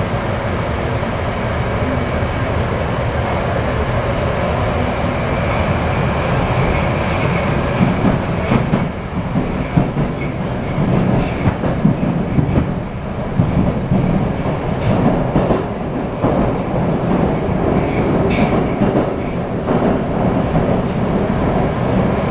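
Moskva-2020 (81-775/776/777) metro train underway, heard from inside the car: a steady rumble of wheels on rail, with scattered clicks over rail joints through the middle of the stretch.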